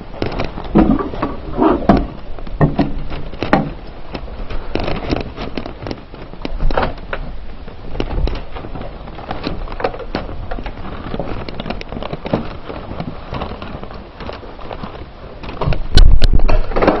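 Handling noise from a handheld camera: rubbing, clicks and knocks, with a loud bump of handling near the end.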